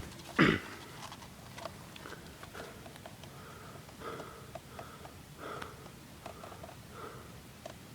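A person's breathing and sniffing close to the microphone, in short puffs every second or two, with scattered light clicks and rustles. A single loud, sharp knock or bump about half a second in.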